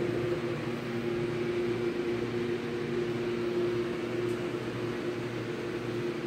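Steady machine hum with a constant mid-pitched tone over a light hiss, unchanging throughout.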